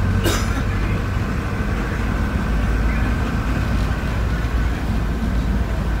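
Airport apron shuttle bus driving, heard from inside the passenger cabin: a steady low rumble with a faint steady whine above it. A single short knock comes just after the start.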